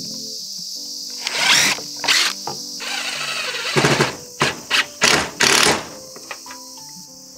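Background music, with several short bursts of a cordless impact driver driving screws, each lasting under half a second, from about a second in until near six seconds.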